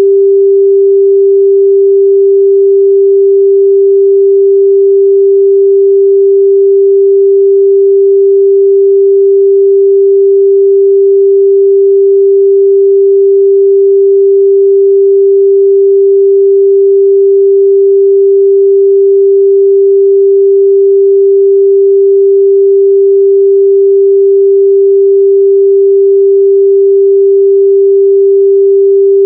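Steady 394 Hz sine-wave test tone, one pure unchanging pitch at constant loudness.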